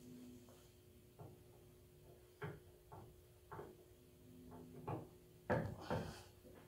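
Scattered light metal knocks and clunks as a hub part is handled and slid onto the front axle spindle of a John Deere 4720 compact tractor, the loudest two about five and a half and six seconds in.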